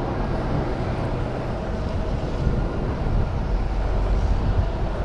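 HGV tractor unit's diesel engine running at low speed, heard from inside the cab as a steady low rumble.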